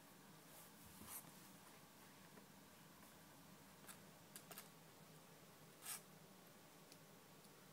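Near silence, with a few faint, brief scratchy rustles from young kittens scrambling on a blanket: one about a second in, then a cluster between four and six seconds in, the last the strongest.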